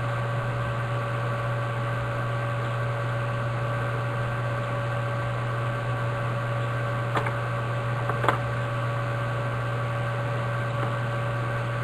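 Steady electrical hum with hiss, holding several fixed pitches, with two faint clicks of card packaging being handled about seven and eight seconds in.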